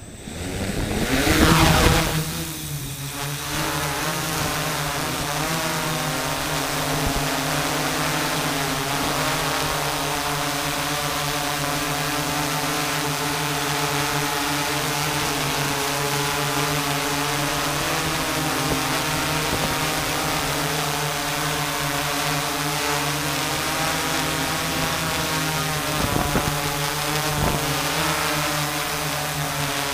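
Hobby multirotor drone's motors and propellers spinning up for takeoff, loudest about one to two seconds in, then a steady hum as it flies, heard close up from the camera on the drone itself.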